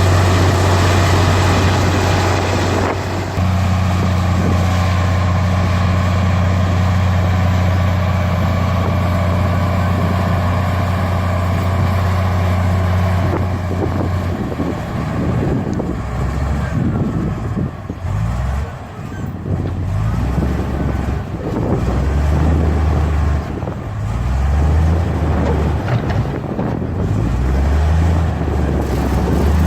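Heavy diesel engine of earthmoving machinery running at a steady low drone for about the first half, then revving up and down repeatedly as the machine works under changing load.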